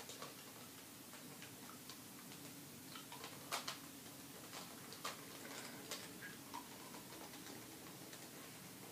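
Faint, irregular plastic clicks and clacks of a QJ 3x3 puzzle cube as its layers are turned, some turns made by biting on it, a few clicks every second or two.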